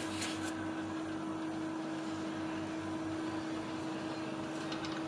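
Centurion Scientific C2 Series benchtop centrifuge running with its lid shut, a steady whir carrying one steady tone.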